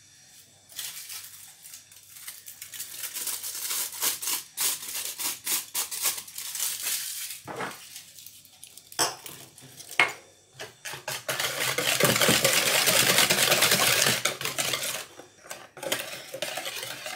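Scattered light knocks and scrapes of utensils, then, about eleven seconds in, a wire whisk beating a runny egg-and-oil batter in a plastic bowl for about four seconds, a fast steady scratching and sloshing, before it slows to a few more taps.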